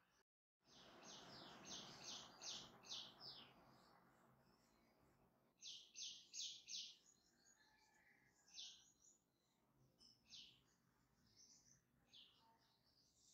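Faint bird chirping: a quick run of about six high chirps in the first few seconds, about four more around the middle, then single chirps every couple of seconds. A soft rustling hiss sits under the first few seconds.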